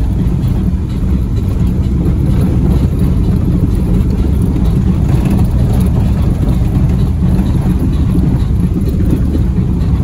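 A vehicle driving along, a steady low rumble of engine and road noise.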